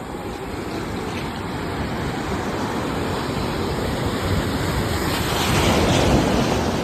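Sea waves washing on a shore: a continuous rushing surge that builds to a louder crest near the end and then starts to ease.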